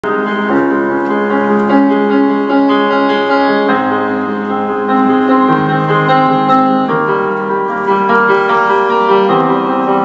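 Solo piano playing slow, held chords, the chord changing every second or two: the introduction of a pop ballad, just before the vocals enter.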